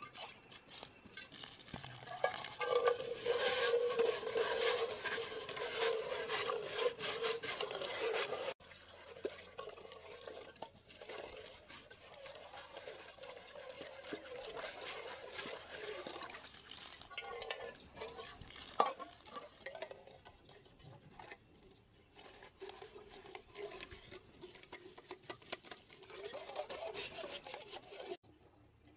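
Metal cookware (a wok, then a pot) being scrubbed with a handful of green leaves under water running from a hose: rough scraping and swishing of leaves on metal with splashing water and the odd clink. The loudest scrubbing breaks off abruptly about eight seconds in, then softer scrubbing and rinsing go on.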